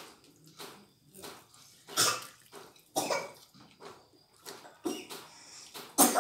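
Close-up wet chewing and lip-smacking of people eating sauce-covered chicken wings by hand, in irregular short bursts. The loudest, sharpest smacks come about two seconds in and near the end.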